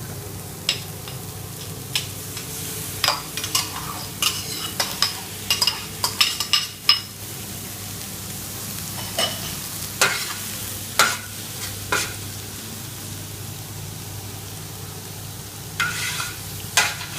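Calamari and vegetables sizzling in a wide paella pan as they are stirred, with clusters of sharp clicks and scrapes of the utensil against the pan.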